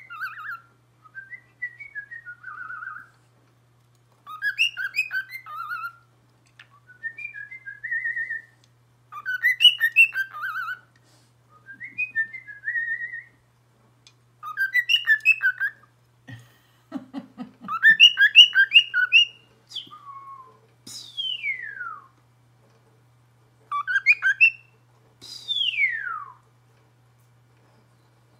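Cockatiel singing in repeated short phrases of chirpy, warbling whistles. Two long whistles slide downward in pitch near the end. About halfway through there is a quick run of soft taps.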